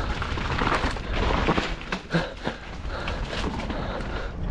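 Mountain bike descending a rough, muddy dirt trail: tyres rolling over dirt and roots, the bike rattling and knocking over bumps, and wind rumbling on the helmet or body camera's microphone.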